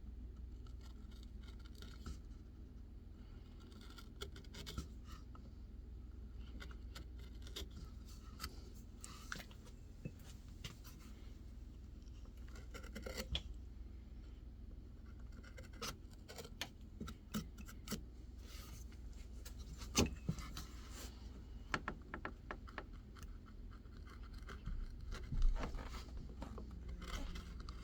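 Carving knife cutting into white birch wood: irregular short scraping cuts and clicks, with a few louder snicks scattered through, over a low steady hum.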